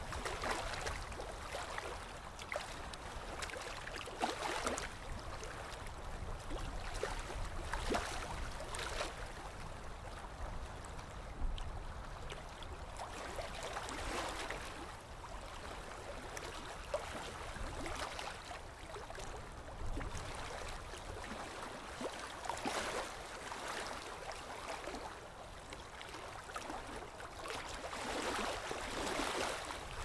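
Steady rushing of water, swelling and easing every few seconds.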